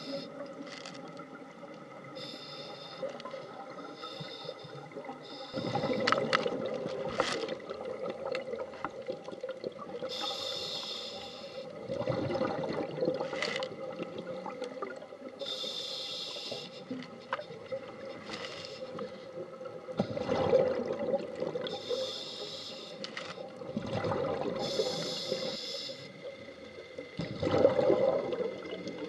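Scuba diver breathing through a regulator underwater. Each inhale is a short high hiss and each exhale a louder burst of bubbling exhaust, in about four slow breath cycles.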